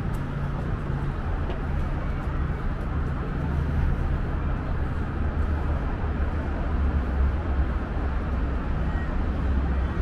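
Steady outdoor city background noise with a continuous low rumble, like distant traffic.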